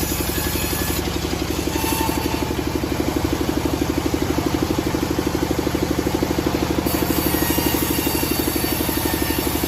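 An engine running steadily at an even speed, with a rapid, regular pulse.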